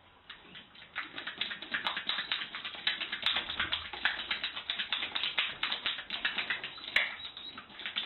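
A horse at its stall door making a fast run of clicks with its mouth, several a second, starting about a second in.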